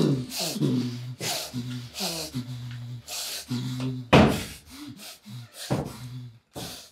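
A person's voice in short cries, each held at a steady pitch for about half a second, alternating with sharp breaths; the loudest breath comes about four seconds in, and it all stops just before the end.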